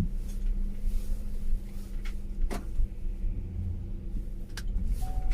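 Van running on the road, heard from inside the cabin: a steady low engine rumble and hum, with two sharp clicks, one about halfway through and one near the end.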